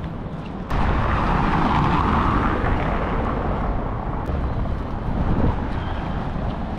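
Outdoor street noise with a low wind rumble on an action camera's microphone. Just under a second in it jumps louder, with a rushing swell that peaks about two seconds in and fades over the next two.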